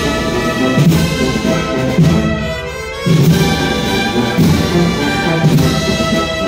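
Spanish processional wind band (banda de música) playing a marcha procesional: sustained brass chords over deep low brass. The chords thin out briefly about two seconds in, and a new phrase enters at about three seconds.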